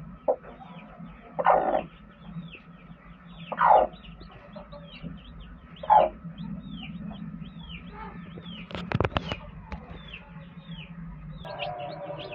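Broody hen clucking loudly three times over a steady run of high, falling peeps from newly hatched chicks. A quick cluster of clicks comes about nine seconds in, and music comes in near the end.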